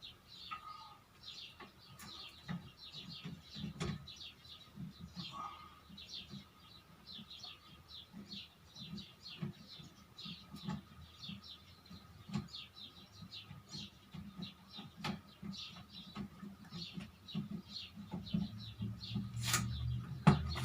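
Small birds chirping over and over in the background, with occasional sharp clicks, knocks and rubbing as table fan parts are handled and fitted.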